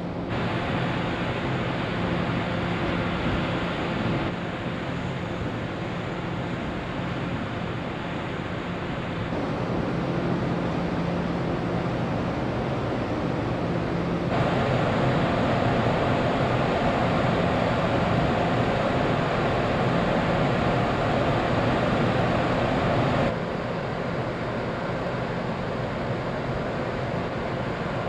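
Steady rush of wind and water on a ferry's open deck, with the ship's low engine hum underneath. The level jumps up or down abruptly a few times.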